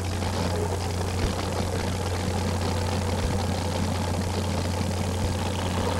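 The big Arias engine of a two-wheel-drive super modified pulling truck idling with a low, steady drone.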